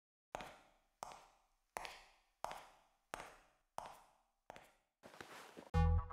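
High-heel footsteps clicking at an even pace, seven steps each with a short echoing tail. A rising whoosh follows, and electronic music with a heavy bass beat kicks in near the end.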